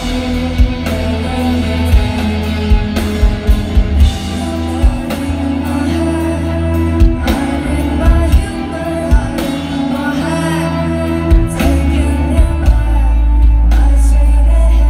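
A rock band playing live through a festival PA: electric guitars, bass guitar and drums, with a woman singing lead. The low end is heavy and sustained, and the mix grows louder and level-pinned near the end.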